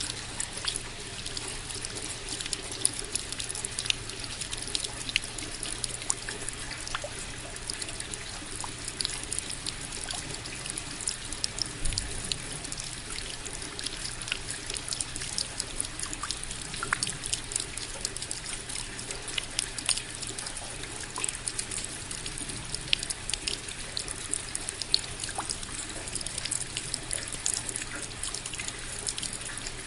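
Steady rain: an even hiss of falling water with many close drops and drips ticking at irregular moments.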